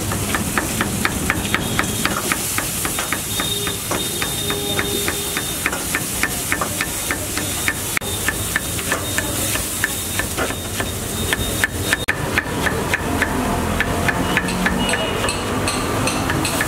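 Large kitchen knife chopping cabbage on a wooden chopping block: fast, even knocks of the blade on the wood, about four or five a second, as the cabbage is shredded. Underneath is a steady background hiss.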